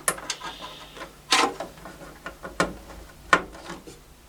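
Irregular sharp clicks and knocks of plastic parts as a hard-drive cable and its connectors are handled and fitted, with four louder clicks spread through.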